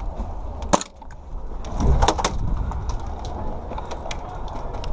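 Sharp single cracks of airsoft guns firing: one just under a second in, two close together about two seconds in, and a few fainter ones later, over a steady low rumble of movement and wind on the microphone.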